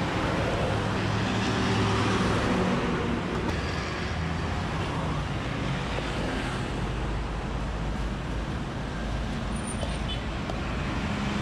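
Road traffic running steadily, with a passing vehicle's engine swelling loudest about two seconds in and then fading.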